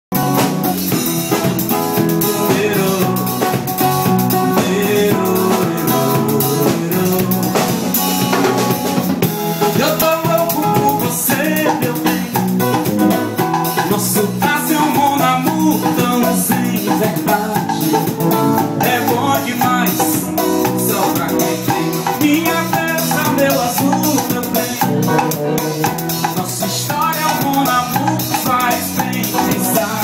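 Live band playing Brazilian music, with electric bass, guitar and drums keeping a steady beat.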